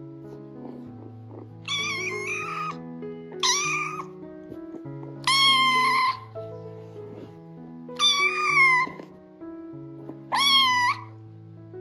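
Kitten meowing five times, high-pitched loud cries each under a second long, calling out in distress while overwhelmed by the older cats. Soft background piano music plays underneath.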